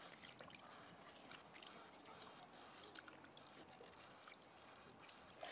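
Near silence, with faint scattered soft clicks and rustles from the sheaths being peeled off a hot boiled bamboo shoot by gloved hands.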